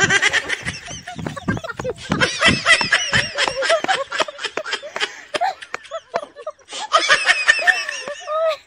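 Women laughing loudly in quick, broken bursts. The laughter eases off about six seconds in and then breaks out again.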